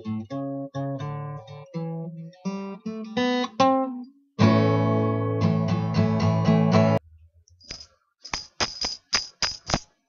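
Acoustic guitar music: single picked notes, then loud strummed chords that cut off suddenly about seven seconds in. Near the end comes a quick run of short, sharp high-pitched clicks.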